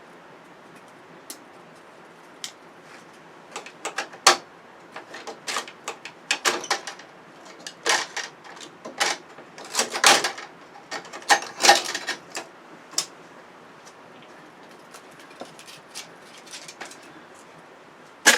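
Irregular clicks, taps and scrapes of small parts being peeled and pulled off the inside of an LED television being taken apart, busiest in the first two-thirds and thinning out near the end.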